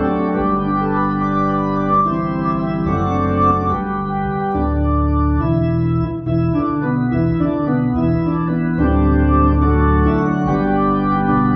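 Hammond organ playing sustained chords over a moving bass line, the chords and bass notes changing every second or two.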